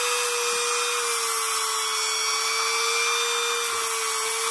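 TacLife rotary tool running free at speed setting 4 of 6, no bit touching anything: a steady motor tone over a hiss, its pitch sagging slightly about a second in.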